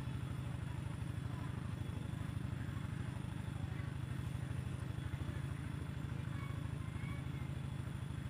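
Small engine running at a steady speed, a low, even throb with no change in pace.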